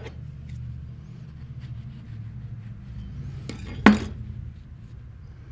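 A single sharp clink of dishware about four seconds in, ringing briefly, over a steady low background hum.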